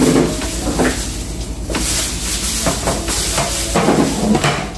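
Black plastic basin of a portable shampoo bowl and its rubber drain hose being handled and set about on a kitchen counter: scattered knocks and clatters over a steady hiss.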